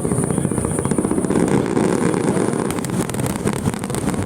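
Fireworks crackling: a dense, rapid run of small pops and crackles that goes on through the whole stretch.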